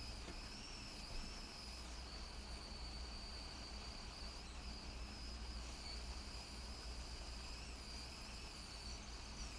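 Faint steady high-pitched electrical whine that wavers slightly in pitch, over a low mains hum.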